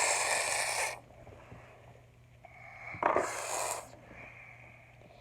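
A child hissing like a cat: one long breathy hiss that stops about a second in, then a second, shorter hiss about three seconds in.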